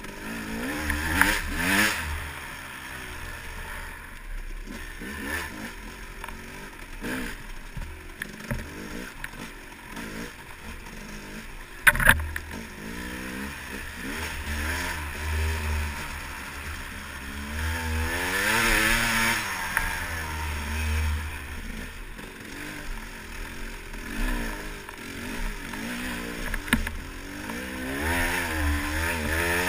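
Dirt bike engine revving up and down over and over as the throttle is worked along a rough trail, with clattering from the bike. A sharp knock comes about twelve seconds in.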